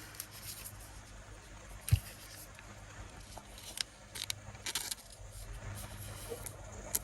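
Faint handling sounds: light scattered clicks and taps of trading cards and tins being moved about, with one dull thump about two seconds in.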